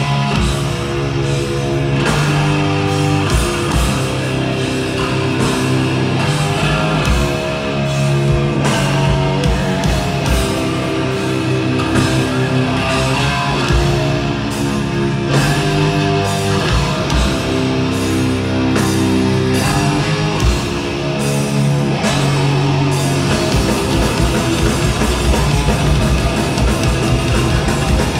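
A live death metal band playing with heavily distorted electric guitars, bass guitar and drum kit. The drumming turns faster and denser near the end.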